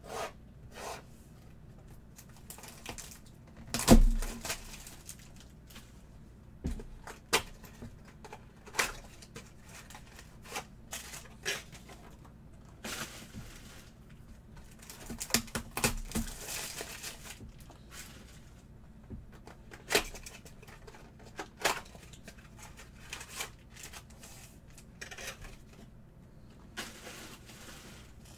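Bowman Chrome baseball card boxes being unpacked by hand: a utility knife cutting the seal, tearing, and card packs rustling as they are pulled out and set down in stacks. Scattered clicks and knocks throughout, the loudest about four seconds in.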